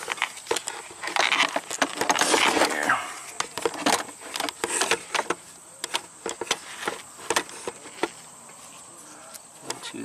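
Gloved hands handling a plastic wiring connector and harness: rustling, with scattered small clicks and taps as a back-probe pin is worked into the connector's terminals. The rustling is busiest early on and gives way to sparser clicks.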